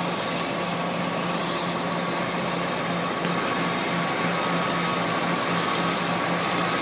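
Diesel engine of a heavy crawler crane running steadily, with a steady high whine over it.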